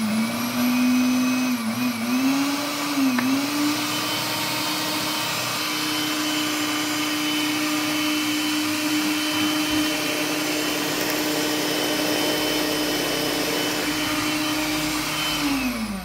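Philips Walita blender motor running at high speed, crushing ice to a fine powder. Its hum dips twice early on, rises and holds steady about four seconds in, then winds down near the end as it is switched off.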